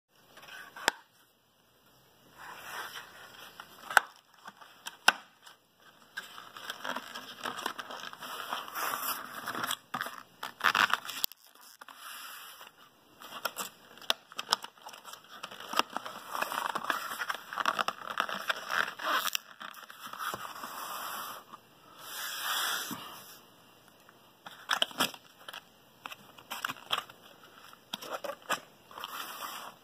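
Stiff white paperboard packaging being folded and creased by hand on a tabletop: irregular scraping and rustling of the card, scattered with sharp clicks and taps.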